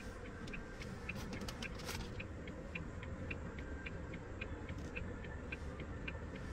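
A 2023 Isuzu D-Max's indicator flasher ticking steadily inside the cab, about three light ticks a second, with the green indicator arrows lit on the dashboard.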